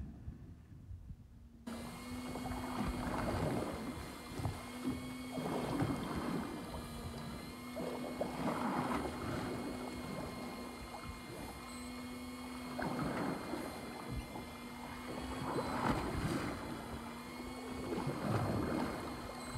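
Sea water sloshing and slapping against a fishing boat's hull, swelling every few seconds. A steady motor hum switches on about two seconds in and runs under it.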